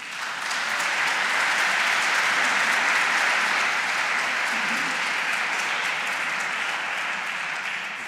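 Audience applauding, starting abruptly, holding steady, then easing off slightly near the end.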